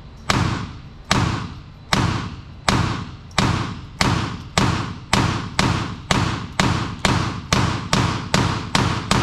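Keltec CP33 .22LR pistol firing a long string of about seventeen shots, the pace quickening from a little over one a second to about two and a half a second, each shot echoing in the indoor range.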